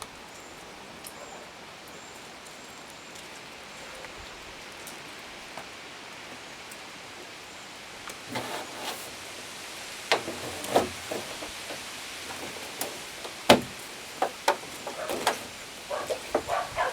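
Steady hiss of light rain, then from about eight seconds in a series of sharp knocks and bumps as the rain barrel is wrestled up onto its stand, the loudest knock a little past halfway.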